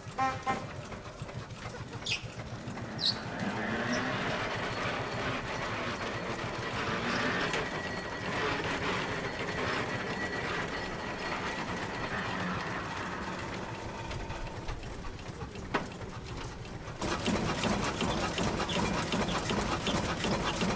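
Christoph & Unmack horizontal single-cylinder stationary engine on a portable band saw running with an even, regular beat. Two sharp clicks come a few seconds in, and the engine is louder near the end.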